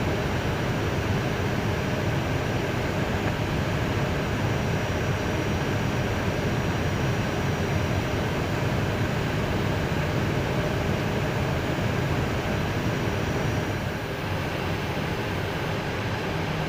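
Steady cockpit noise of an Airbus A320 in flight: a rush of air past the nose and windscreen blended with a low hum, easing slightly about fourteen seconds in.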